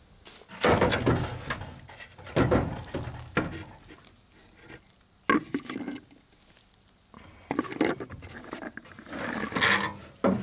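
Intermittent rustling and knocks from hands gathering eggs in a straw-lined wooden nest box, in several short bursts.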